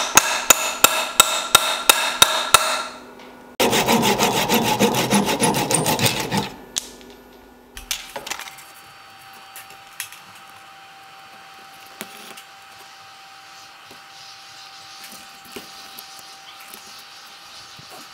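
Hammer driving a metal wedge into the top of an ash axe handle, about three ringing metal-on-metal strikes a second, stopping about three seconds in. A few seconds of loud scraping tool work on the wood follow, then a quiet stretch with only a faint steady hum and a few light ticks.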